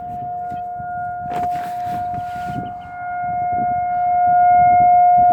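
Federal Signal 2001-SRNB outdoor warning siren sounding its steady alert tone for a scheduled test: one held, unwavering note. It swells louder a little past halfway as the rotating siren turns toward the listener.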